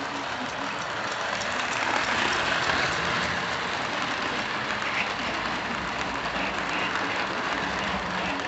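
Lionel O-scale freight train rolling past on FasTrack three-rail track: a steady rumble and rattle of the freight cars' wheels on the track, a little louder a couple of seconds in.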